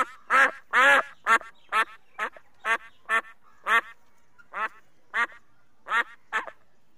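A white domestic goose calling in a rapid series of short honks, about two a second, with a brief gap midway; the calls stop shortly before the end.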